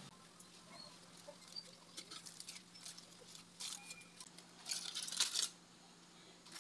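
Aluminium foil crinkling and rustling, with light clicks of metal cookware, as the foil covering is peeled off a flan mold in a steamer. The rustling comes in short bursts and is loudest a little before the end.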